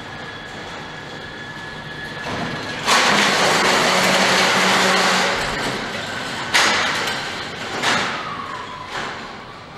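Tugger train towing a chain of coupled trolleys whose castors all roll on the floor, the carts only coupled and not lifted: a loud rattling and clattering stretch from about 3 s in, then three sharp bangs, with a thin high squeal that glides down near the end. This rattle is the high noise level typical of this conventional tugger train concept.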